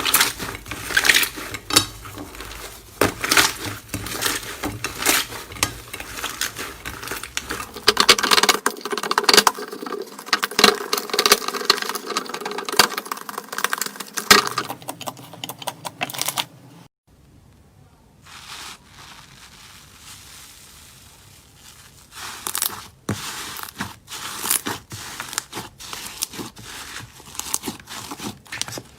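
Slime being squeezed and pressed by hand: a dense run of sticky crackling clicks and pops. It cuts off suddenly about 17 seconds in, and after a quieter stretch sparser crackles return.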